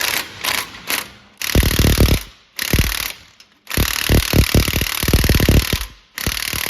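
Pneumatic air tool hammering in bursts, a few short blips and then four longer runs of rapid blows with a hiss of air, working a seized valve loose in a Ford GPW engine.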